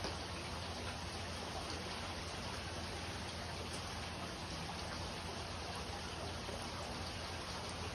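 Steady flowing and trickling water with a low, even hum from a saltwater aquarium's circulation and filtration pumps.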